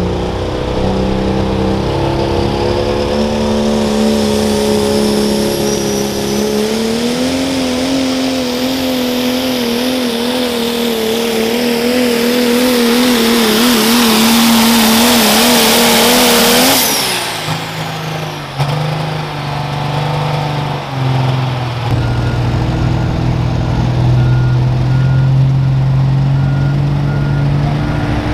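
Pro stock diesel pulling truck, a Dodge Ram, under full power down the track: the engine note climbs, then wavers up and down rapidly as it pulls, with a high whistle rising above it. About 17 seconds in the power cuts off abruptly, and a lower, steady diesel engine note follows.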